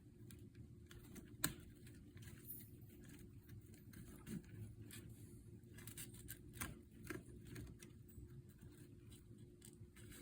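Faint handling noises from a cellular blind's headrail mechanism as a part is fitted: scattered small plastic clicks and rustles, with one sharper click about a second and a half in.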